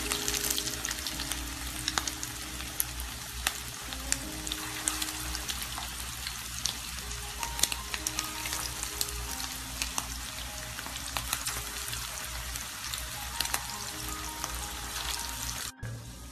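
Prawn-and-coconut patties shallow-frying in hot oil in a pan: steady sizzling, thick with sharp crackles and pops of spitting oil. The sizzle drops out for a moment near the end.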